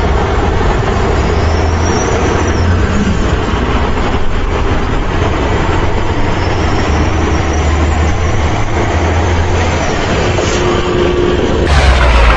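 Heavy truck engine running steadily with a low rumble. Near the end it cuts abruptly to a louder, fuller engine sound.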